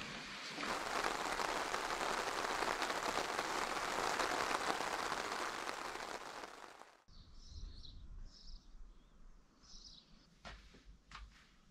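Steady rain falling, which cuts off suddenly about seven seconds in. A few short, high bird chirps follow, then a couple of light clicks near the end.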